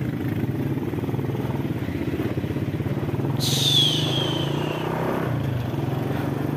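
Motorcycle engine running steadily at low speed. About three and a half seconds in, a sudden high hiss comes in with a squeal that falls in pitch over about a second.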